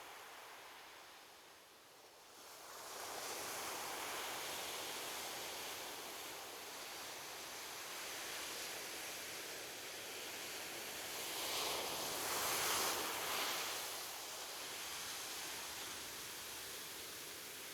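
Ocean surf washing onto a beach: a steady hiss that builds about two and a half seconds in, with a louder wave swelling and falling back about two-thirds of the way through.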